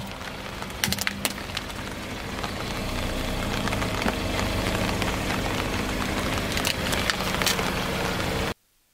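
A car tyre crushing a hard plastic toy on asphalt: the plastic cracks and snaps in quick clusters about a second in and again around seven seconds, over the car's steady low running and tyre noise. The sound cuts off suddenly near the end.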